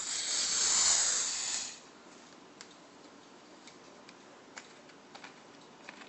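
Pressurised CO2 hissing out of a plastic soda bottle of home-carbonated ginger beer as its cap is twisted loose. The rush lasts a little under two seconds, then a few faint, scattered ticks follow.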